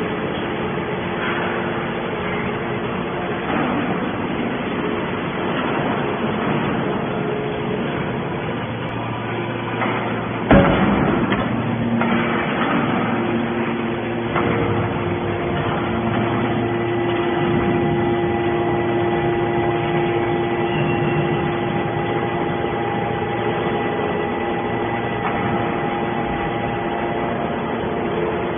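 Hydraulic scrap metal baler running: the steady hum of its hydraulic power unit, with one loud metal bang about ten seconds in. From about halfway the hum settles into a steadier drone.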